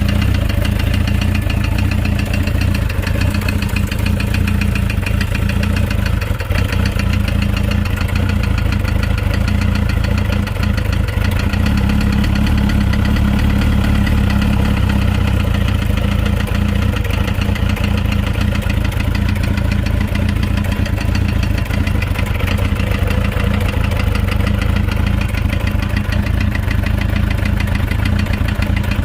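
Motorcycle engine idling steadily with a fast, even knocking running through it, the knock the owner is trying to show.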